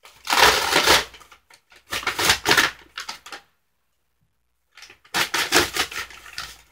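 Crumpled brown kraft paper wrapped around a potted plant crinkling and rustling as hands grip and move it, in three bursts of crackling with a silent break of about a second between the second and third.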